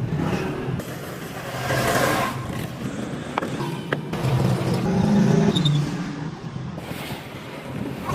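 A vehicle engine running unevenly, swelling and easing off, with two sharp clicks about halfway through.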